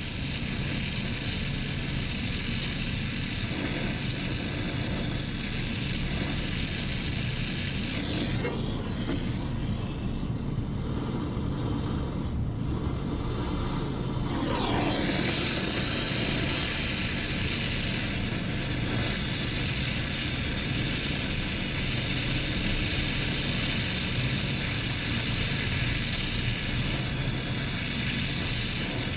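Brazing torch hissing steadily as a copper joint on the TXV is brazed, over a constant low hum; about halfway through the hiss turns louder and brighter.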